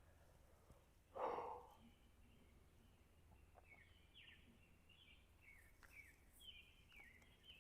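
A faint bird calling over and over in short, high chirps that each slide downward, coming thick and fast in the second half. About a second in there is one brief, louder rushing noise, the loudest sound here.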